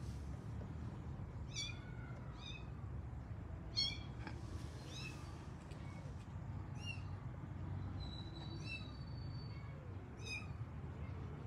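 Young kitten crying with about eight short, high-pitched meows a second or so apart, the isolation calls of a kitten calling for its mother. A single brief knock sounds about four seconds in.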